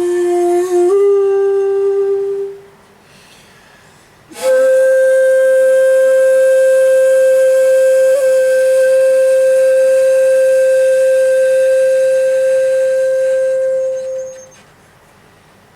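Solo komuso-style shakuhachi: a low note that steps up slightly and fades out, a pause for breath, then a sharp breathy attack into one long, steady higher note held for about ten seconds that fades away, followed by another pause.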